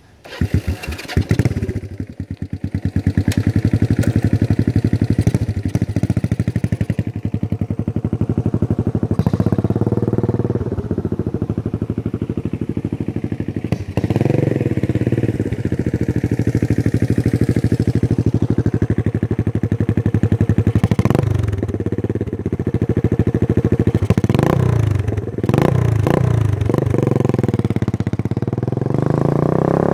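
1978 Kawasaki KZ200's single-cylinder four-stroke engine running through a 12-inch Emgo shorty muffler with freshly repacked, full packing. It settles into a steady run after an uneven first couple of seconds, and the throttle is blipped several times, each a quick rise and fall in pitch.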